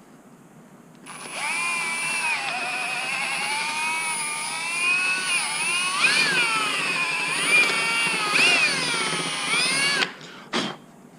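Power drill running for about nine seconds, its motor whine dipping and rising in pitch as it bites into the work and eases off, enlarging a bolt hole in a plastic battery box; it starts about a second in and stops abruptly near the end.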